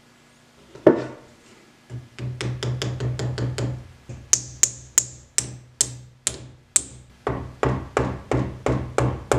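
Hammer blows driving wedges into the handle end in the eye of a ball-peen hammer head, first a wooden wedge and then a metal one: a single knock, then a steady run of quick taps about three a second, several with a bright metallic ring.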